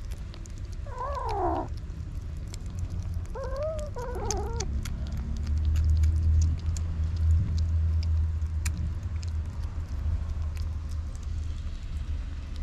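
Young kittens meowing: one falling meow about a second in, then a few short meows around three to four seconds in. Small clicks of kittens eating wet food run underneath, and a low rumble swells in the middle.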